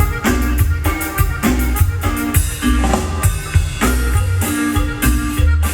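A norteño band playing an instrumental passage, with a drum kit beating steadily over a heavy bass and sustained notes from the melody instruments.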